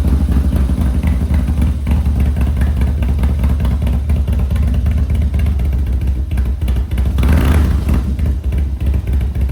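Harley-Davidson Twin Cam V-twin engine, just rebuilt with Andrews TW50 cams, running steadily, with a short rise about seven seconds in.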